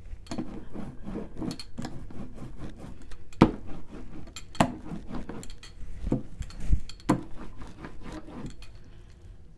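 A hand-held art tool tapping and scrubbing on paper on a work table: irregular quick taps and rubbing, with four louder knocks spread through the middle.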